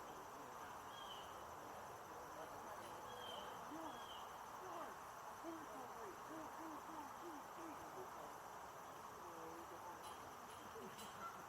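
Small brook babbling steadily over stones. A run of short, low-pitched calls, about three a second, comes through a few seconds in.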